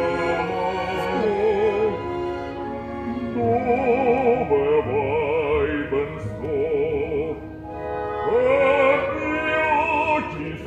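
Operatic singing: a trained voice holding long notes with wide vibrato over sustained accompaniment.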